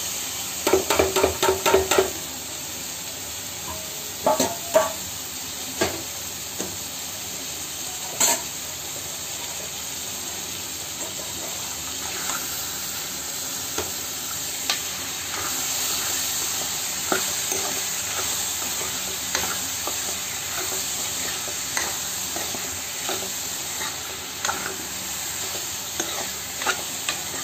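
Onion, tomato and pea masala sizzling in a Prestige kadhai as cubes of paneer are stirred in with a steel spoon. The spoon clatters in a quick run about a second in, then clicks and scrapes against the pan now and then over the steady sizzle.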